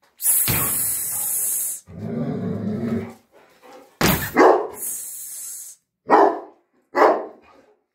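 A dog barks three times in the second half: one bark about four seconds in and two short barks near the end. Before them comes a long harsh scraping noise.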